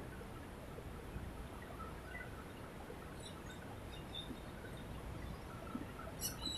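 Steady outdoor background noise with faint, scattered bird chirps, and two sharp clicks near the end.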